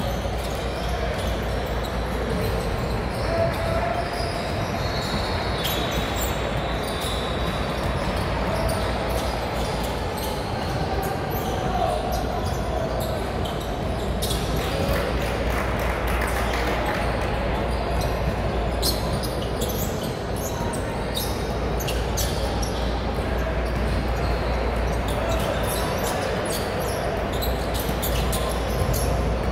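Basketball game in a big gym: a ball bouncing on the hardwood court among the footsteps of players, over a steady hubbub of players' and spectators' voices echoing in the hall.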